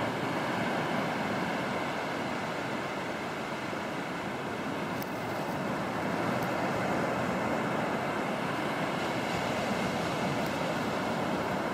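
Low surf breaking and washing up a flat sandy beach: a steady rush of waves.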